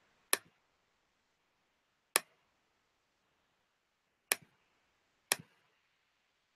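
Four single sharp clicks of a computer mouse, the first three about two seconds apart and the last one a second later, with near silence between them.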